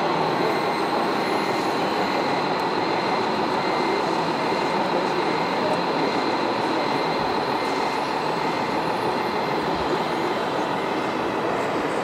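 Radio-controlled model trucks and machines running, a steady mechanical noise with a constant high whine and a fainter tone pulsing on and off about twice a second.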